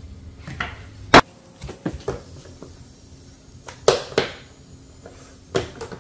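A series of short hard-plastic knocks and clicks from the lids and latches of electric taiyaki makers, and a batter jug, being handled and set down on a countertop. The loudest is a single sharp knock about a second in, with pairs of lighter knocks around two, four and near six seconds.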